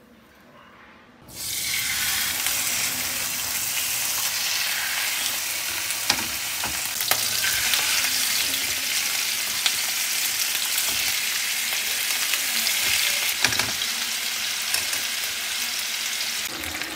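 Chicken sizzling in hot oil in a frying pan, skin side down, with scattered sharp pops of spattering fat. The sizzle starts suddenly about a second in and then holds steady.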